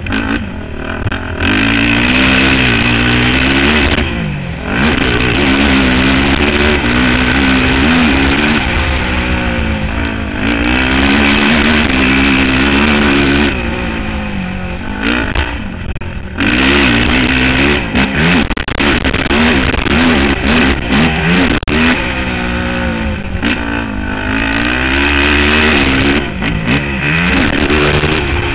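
Racing quad (ATV) engine revving hard, then easing off and picking up again several times as the rider goes on and off the throttle around a motocross track, with the pitch climbing and falling in each cycle. Heard from the rider's helmet camera, close to the machine.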